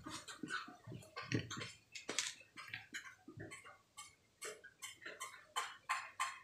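Irregular light clicks and scrapes of a wire tracker's metal probe tapping against the pins of an RCA plug during a continuity test, a few small clicks a second.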